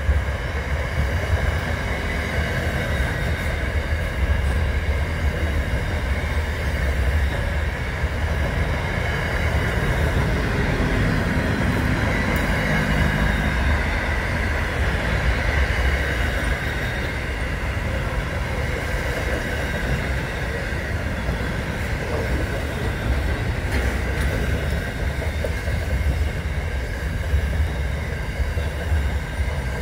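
Freight train of intermodal container wagons rolling past: a steady low rumble of wheels on rail with a high ringing note over it.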